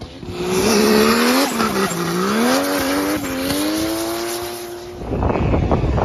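Swapped-in Toyota 1JZ straight-six in a BMW E30 at high revs through a drift, its pitch dipping and then climbing as the throttle is worked, with the tyres squealing under it. About five seconds in it gives way to wind rumbling on the microphone.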